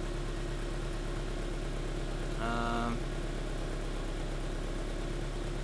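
Honda H22A four-cylinder engine of a 1995 Civic idling steadily a few minutes into its first cold start of the day. A short steady hum-like tone sounds about halfway through.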